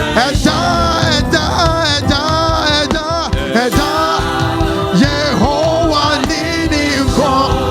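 Live church worship music: a singer's melody over accompanying instruments with a steady beat.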